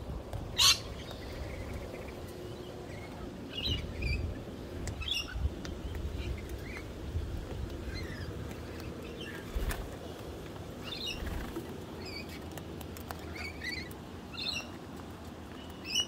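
Parrots, a rainbow lorikeet and sulphur-crested cockatoos, giving scattered short, high chirps and squeaks at close range. A sharp click about a second in is the loudest sound, over a low rumble.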